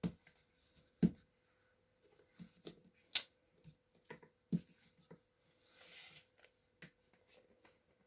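Small objects being handled on a table: scattered taps and clicks with a few dull thumps, a sharp click about three seconds in, and a brief rustle around six seconds.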